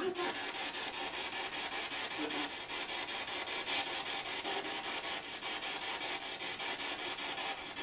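Spirit box radio sweeping through stations: a steady hiss of static chopped into rapid, even pulses, with a brief louder blip of sound near the middle.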